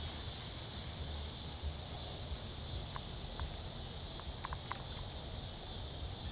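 Steady outdoor chorus of insects, a continuous high buzz, with a low rumble underneath and a few faint clicks around the middle.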